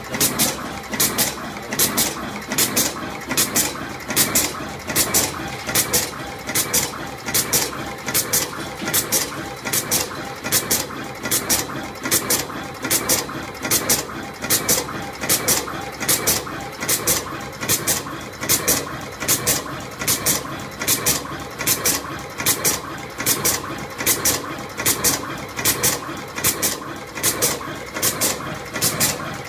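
Automatic wire-twisting terminal crimping machine running its cycle: sharp clacks in quick pairs about once a second over a steady mechanical whir, as it feeds, twists and crimps terminals onto ultra-short wires.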